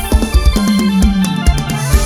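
Instrumental passage of a live mor lam band through a loud sound system: a steady heavy drum beat of about three to four hits a second under held electric keyboard chords, with a low note that slides downward about halfway through.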